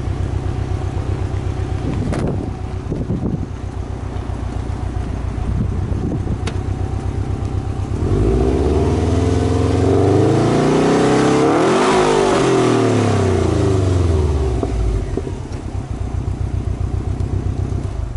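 Subaru Impreza NB-R's flat-four boxer engine heard at the exhaust tip, idling steadily, then given one slow free rev with no load. The revs climb for about four seconds to a peak around the middle and fall back to idle.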